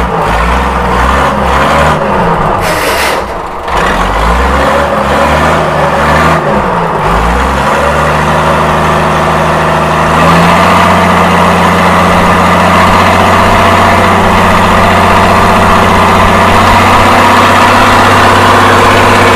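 Mitsubishi 6D16 inline-six diesel engine of a boat under way, its revs rising and falling with the throttle for the first several seconds. It then steadies, and about ten seconds in it is opened up to a steady, higher-speed run.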